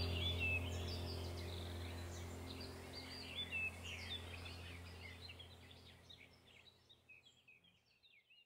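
Small birds chirping and twittering over a low steady drone, the whole track fading out gradually and ending just before the close.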